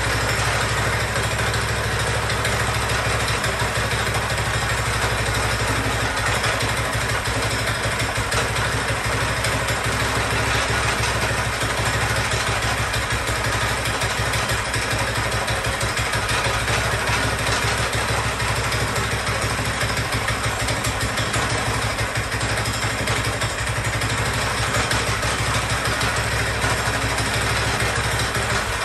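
Chopper mini bike's small engine running steadily on its first start, choke on, inside a closed garage. It is bolted straight to the frame without its rubber mounts and shakes a lot.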